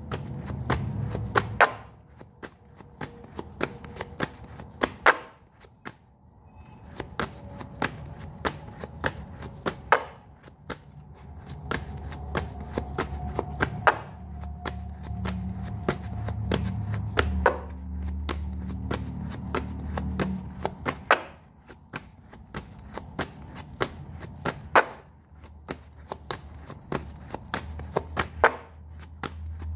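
A deck of tarot cards being shuffled and handled on a table, giving an irregular run of sharp clicks and snaps.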